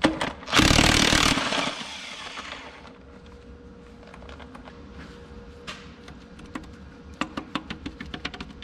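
A short, loud burst from an air-powered wrench spinning a connecting-rod cap bolt loose on a tractor engine's bottom end, fading off over about a second. Near the end comes a quick run of light metal clicks as the rod cap is worked free.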